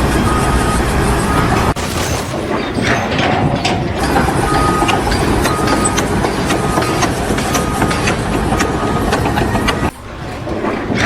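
Construction machinery running with a reversing alarm beeping about once a second, with some knocks; the sound changes abruptly twice at edits.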